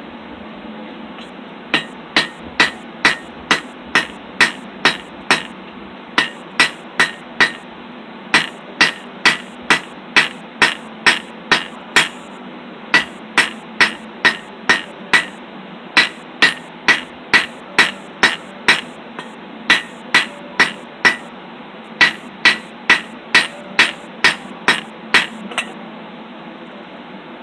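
Blacksmith's hammer striking hot steel on an anvil, drawing out the split forks of a roasting stick. Steady blows about two a second, each with a bright ring, in runs of several strikes broken by short pauses, starting about two seconds in and stopping shortly before the end.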